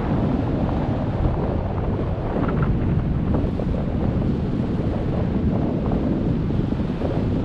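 Wind of a paraglider's flight rushing over the camera microphone: a steady, heavy low rumble of wind buffeting.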